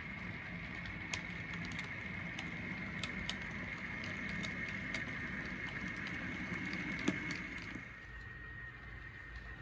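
HO scale model freight train rolling past on the layout: the cars' wheels rumble along the track with scattered sharp clicks, over a steady high whine. The rumble and clicks drop away about eight seconds in, leaving only a faint whine.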